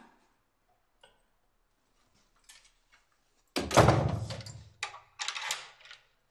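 Soft clicks from an apartment front door, then a heavy thud about three and a half seconds in. Near the end comes a burst of clicking and rattling from the door's lock and handle as it is locked.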